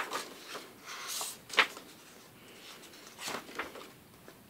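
Pages of a paperback picture book being turned and pressed flat by hand: several short papery swishes and rustles, the sharpest about a second and a half in.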